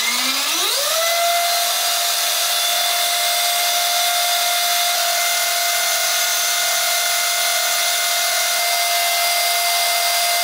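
LaTrax Teton 1/18-scale RC truck's electric motor and drivetrain spinning its 3D-printed TPU wheels at full throttle, with the wheels off the ground and nothing to load them. The whine rises in pitch over the first second as the wheels spin up, then holds steady at top speed, about 3700 RPM.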